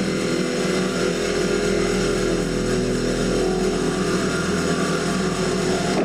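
Steady, sustained stage music for the act: held low tones over a constant low rumble, with no clear beat.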